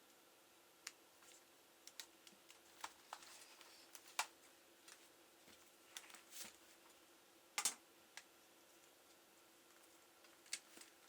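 Faint, irregular small clicks and taps from a laptop being handled and worked on, about a dozen over several seconds, with a sharper pair of clicks near the middle. A faint steady hum runs beneath.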